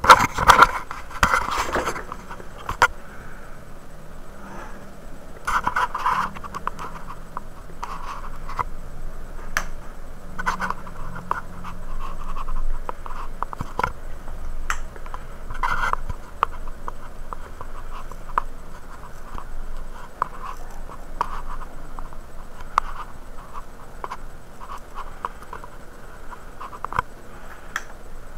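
Scratching and scraping with many scattered clicks and knocks, heaviest in the first couple of seconds: handling noise from a handheld camera being moved and rubbed.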